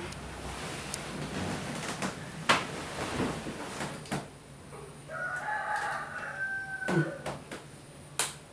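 A rooster crows once, a call of about a second and a half starting about five seconds in. Around it are rustling and a few sharp knocks.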